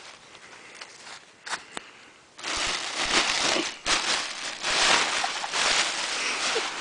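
Plastic gift bag crinkling and rustling as someone inside pushes and wriggles their way out of it, starting loud and crackly a couple of seconds in after a few light clicks.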